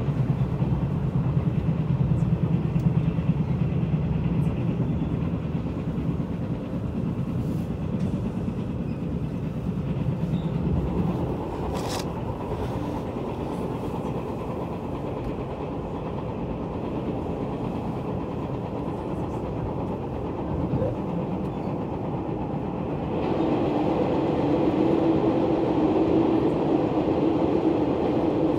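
Steady rolling and running noise of a locomotive-hauled train, heard from inside a Taiwan Railway FPK10600 passenger coach running slowly, with one sharp click near the middle. About 23 seconds in the noise grows louder and takes on a stronger hum as the train enters a tunnel.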